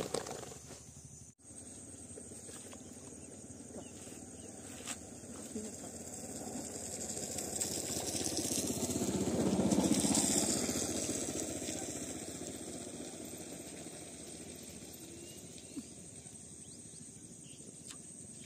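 A motor vehicle's engine passing: its running noise builds to a peak about ten seconds in, then fades away.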